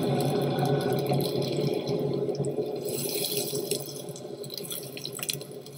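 Spiced raw-mince kebab patties shallow-frying in oil in a nonstick pan, sizzling steadily with scattered crackles; the sizzle grows quieter over the second half.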